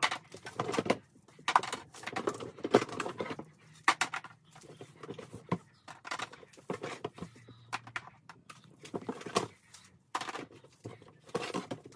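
Plastic toy kitchen pieces clattering and a cardboard box being handled, in an irregular string of knocks, clicks and rustles.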